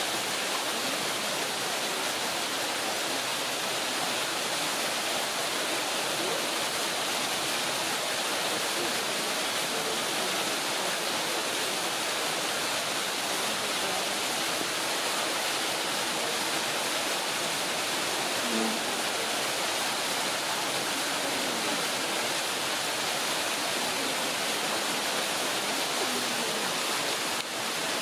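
Steady, unchanging rushing noise.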